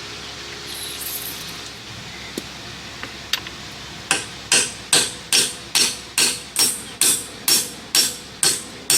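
Ratchet wrench and socket backing out a stubborn, possibly cross-threaded bolt on an outboard's tilt and trim pump motor. Sharp metallic clicking strokes come at a steady pace, about two a second, starting about four seconds in.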